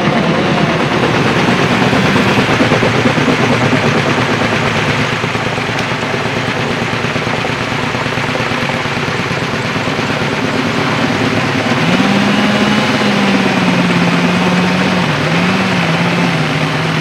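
Helicopter running overhead, a loud, steady rotor and engine noise. About twelve seconds in, an engine tone joins it, wavering up and down in pitch.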